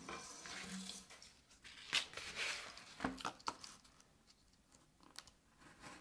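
Paper and cardboard collage pieces being handled: faint rustling and crinkling with a few soft clicks and knocks.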